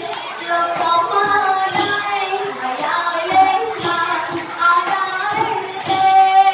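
A woman singing a Khmer Trot dance song into a handheld microphone, a continuous melodic line with long held notes, with a few sharp percussive knocks underneath.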